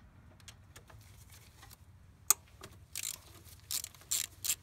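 Socket ratchet clicking while loosening the fuel rail hold-down bolts: a single sharp click a little over two seconds in, then short bursts of ratchet clicks about twice a second.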